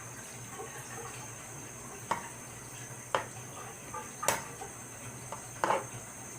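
Tableware clinking: four sharp, separate clinks spread over the few seconds, over a low steady hum.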